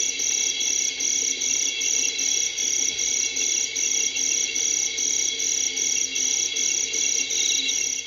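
A chorus of night insects such as crickets, with one loud, regular chirp pulsing about three times a second over a steady trilling drone. It stops and fades out at the end.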